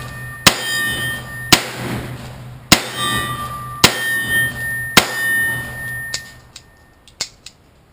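Five shots from a Smith & Wesson AirLite .357 revolver, about one a second, each followed by a metallic ringing. A few light clicks come near the end.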